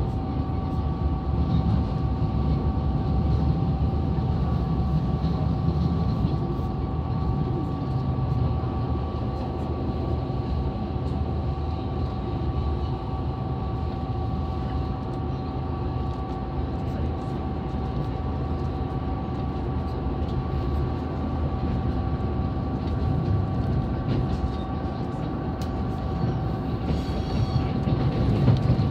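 Interior sound of a KiHa 187 series diesel railcar running at speed: a steady low rumble of diesel engine and running gear, with two steady whining tones held throughout, growing slightly louder near the end.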